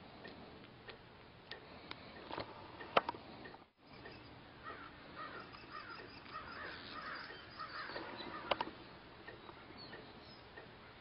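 Faint bird calls, with a few sharp clicks over a low hiss; the loudest click is about three seconds in and another comes past eight seconds. The sound drops out for a moment near four seconds.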